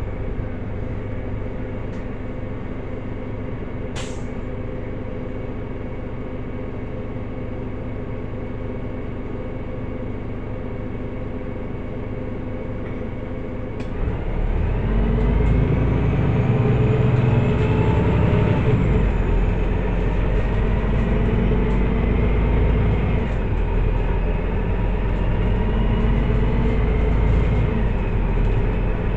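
Solaris Urbino 18 IV articulated city bus heard from inside the passenger cabin, its engine running steadily, with one sharp click about four seconds in. About fourteen seconds in, the engine note jumps louder as the bus pulls away, rising in pitch through gear changes as it gathers speed.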